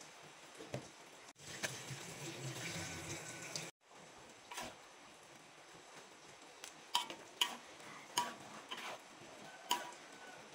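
A metal spatula stirring fried chicken pieces into a creamy buttermilk sauce in a metal wok, scraping and clinking against the pan. A run of sharp clinks comes in the second half.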